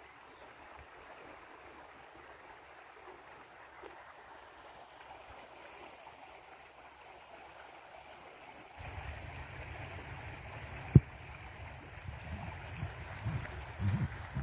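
Muddy water rushing down a rock-cut irrigation canal just after release, a steady faint rush as the flow picks up speed. From about nine seconds in it grows louder with a low rumble underneath, and a single sharp knock comes about two seconds later.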